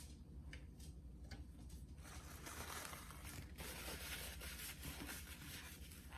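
Close rustling and crinkling noise with fine crackles, in two stretches from about two seconds in.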